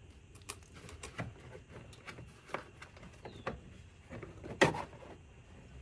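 Scattered light clicks and taps of a plastic mud flap and its clip being handled and lined up against the car's wheel-arch lining, with one louder knock about four and a half seconds in.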